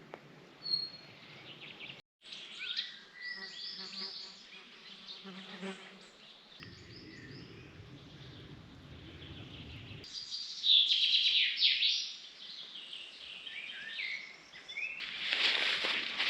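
Songbirds singing and chirping in a forest, with a low steady hum in the middle, possibly insects buzzing. The sound changes abruptly several times where short takes are cut together.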